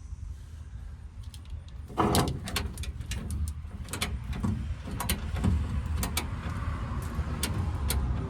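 Hand tools working a rusted bolt: a loud creak falling in pitch about two seconds in, then irregular sharp metal clicks and clanks, over a low steady rumble.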